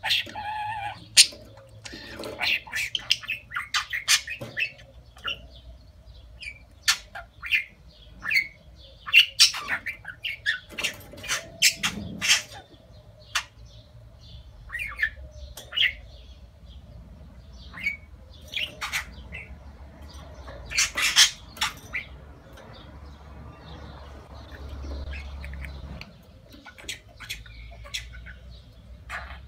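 Budgerigars chattering in a cage: a run of short, irregular chirps and squawks, thickest in the first half and with a louder cluster about two-thirds of the way through.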